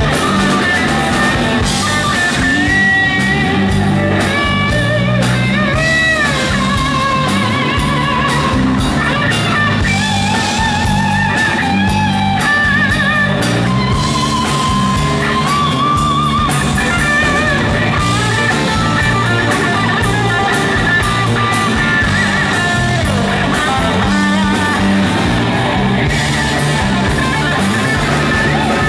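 Live rock band with an electric guitar solo: a lead line of sustained notes with bends and vibrato over bass guitar and a drum kit.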